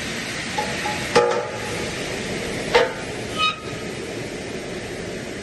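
Two sharp metal clanks, about a second in and near three seconds in, each ringing briefly with bell-like tones, then a short metallic ring, over steady machine noise from the aluminium cutting machine.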